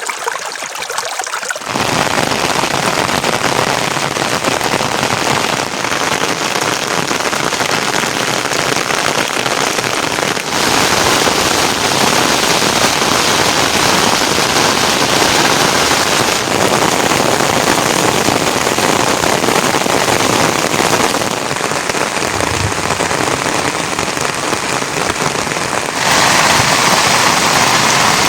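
Steady heavy rain falling, a dense even hiss. It is thinner and higher for the first second or two, then fuller, and shifts abruptly in tone several times.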